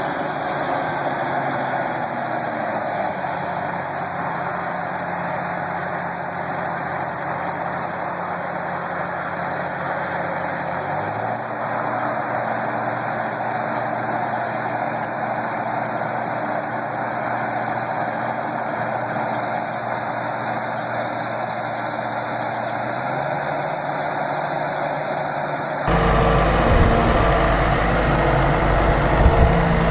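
Tractor engine running steadily, its pitch dropping a few seconds in and rising twice later. About 26 seconds in it cuts abruptly to a louder, deeper engine sound.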